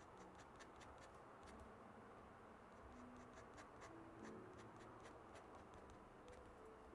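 Steel Nikko dip-pen nib scratching across sketchbook paper in many quick short strokes, each a faint sharp scratch.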